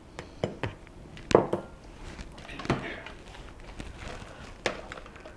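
A few separate knocks and clinks of kitchen bowls being handled and set down on the counter, the loudest about a second in.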